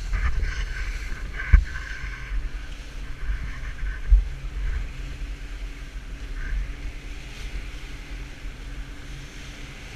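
Fishing boat running at speed through waves: wind buffeting the microphone and water rushing past the hull, with a faint steady engine drone underneath. Two heavy thumps, about a second and a half in and again about four seconds in, as the hull slams into waves.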